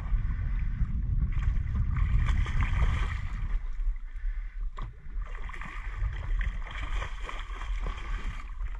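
Water splashing and sloshing at the side of a small boat as a hooked cobia thrashes at the surface, over a steady low rumble.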